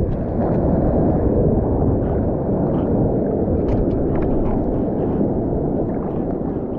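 Seawater sloshing and washing around a mouth-mounted GoPro held at the surface, a steady, dull rush with a few small splash ticks.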